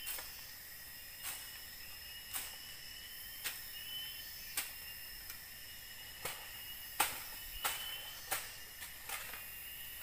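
Night insect chorus: several steady, shrill, overlapping trills held at different pitches. Irregular sharp taps or ticks cut through it about once a second, coming closer together in the second half.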